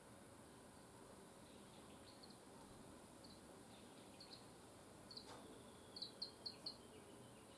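Small songbirds chirping faintly in short, high notes, a few scattered ones and then a quick run of four louder chirps near the end, over a soft steady hiss.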